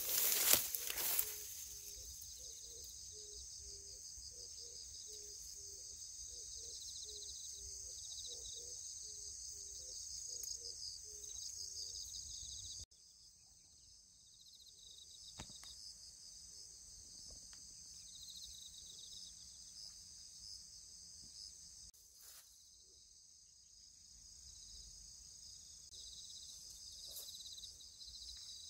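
Steady, high-pitched chirring of crickets and other insects in the waterside grass. It opens with a brief, loud rustle of handling. A low, repeated note comes about twice a second through the first twelve seconds.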